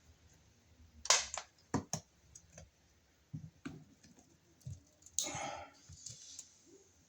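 Sharp clicks and knocks from handling a wall outlet and its wiring at the electrical box, loudest just after a second in, followed by a few duller taps and a short scraping rub about five seconds in.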